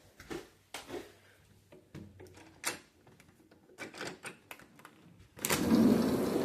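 Footsteps and small knocks of someone walking through a house. About five seconds in, a door opens to the outside and a loud rush of air noise comes in.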